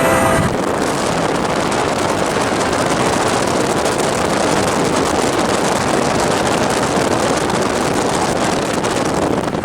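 Steady rushing noise of a freight train rolling past, mixed with wind on the microphone.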